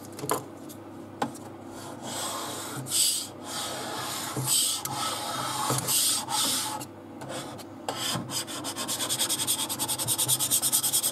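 A small plastic tool rubbed firmly over blue tape on a 3D printer bed to press it flat: scattered scraping strokes, then a quick run of short back-and-forth strokes near the end.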